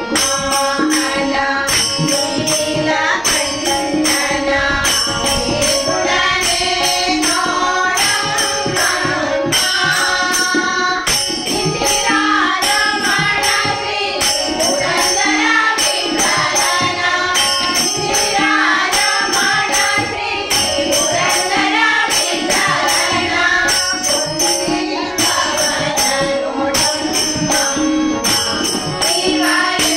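Group of women singing a Hindu devotional bhajan together, accompanied by harmonium and tabla, with a steady beat of about two strokes a second.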